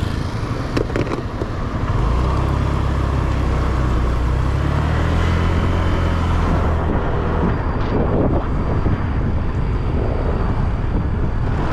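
Motorbike engine running while riding, with wind and road noise rushing across the microphone. The engine hum grows stronger about two seconds in and sinks back into the wind noise around seven seconds.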